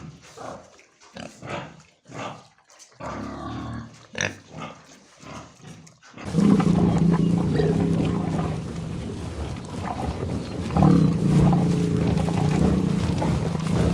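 An animal's short grunt-like calls, one after another, then from about six seconds in a louder animal's long, low, pitched calls, in two stretches.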